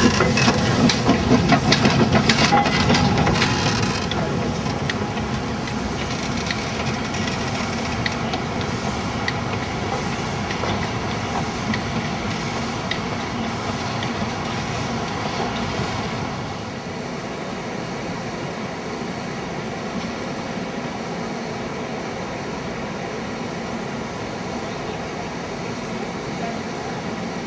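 Chinese C2 0-8-0 narrow-gauge steam locomotive moving slowly past, with rhythmic strokes and steam hiss that are loudest in the first few seconds. After that the sound turns steadier and fainter as the engine draws away.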